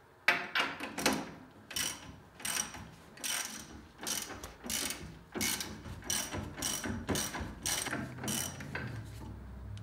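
Hand ratchet wrench clicking in repeated back-and-forth strokes, about two a second, as it loosens the U-bolt nuts on a truck's rear leaf spring plate.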